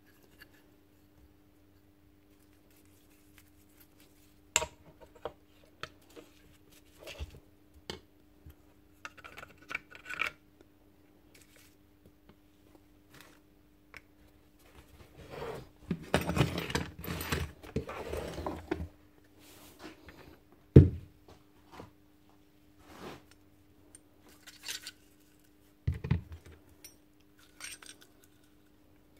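Metal parts of a Bosch GSH 11 E demolition hammer being handled and fitted together by hand: scattered clicks and clinks, a few seconds of clattering and scraping about halfway through, and a sharp metal knock about two-thirds of the way in, the loudest sound.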